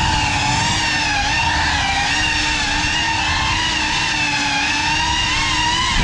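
Cinelog35 3.5-inch cinewhoop FPV drone's brushless motors and propellers whining at a fairly steady pitch that wavers slightly with throttle, over a low rumble.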